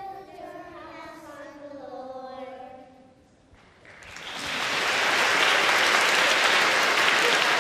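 A group of young children singing the last line of a song together, ending about three seconds in. After a brief pause, applause starts about four seconds in and quickly grows loud.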